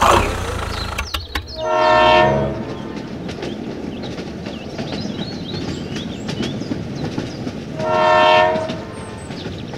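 Train running along track with a steady rattling rumble, its horn sounding twice: one long blast about two seconds in and another about eight seconds in.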